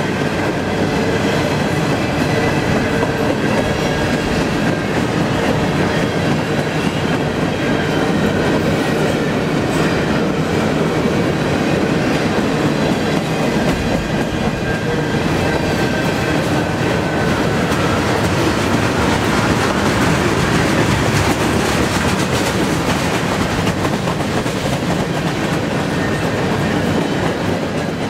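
Freight cars of a CN train rolling past at about 22 mph: a steady rumble of steel wheels on rail with clicking over the rail joints. A faint high-pitched wheel squeal runs through it.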